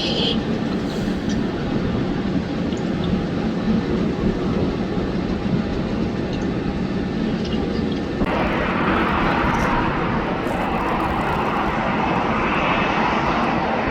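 Airliner engine noise: a steady low rumble, with a louder rushing hiss that comes in suddenly about eight seconds in and holds.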